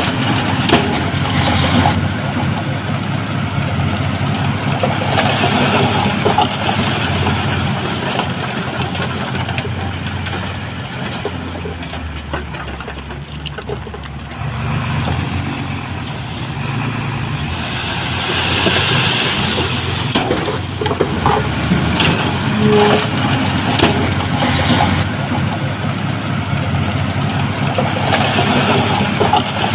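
Heavy diesel earth-moving machinery running, its engine load rising and falling, with scattered metallic clanks.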